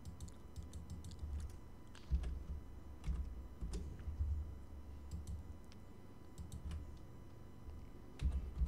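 Scattered clicks of a computer keyboard and mouse as values are entered and adjusted, with a few low dull thuds among them.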